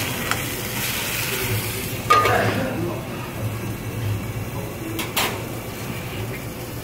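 Marinated chicken sizzling in a stainless steel frying pan while metal tongs scrape and turn the pieces. About two seconds in, a second stainless pan is set upside down over it as a lid with one loud metallic clang, and the sizzle goes quieter under the cover. Two sharp clicks follow near the end.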